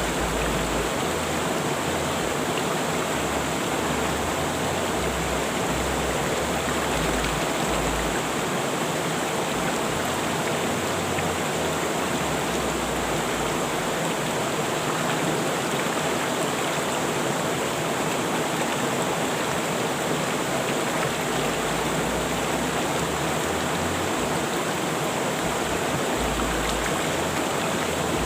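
River water rushing and splashing steadily over rocks.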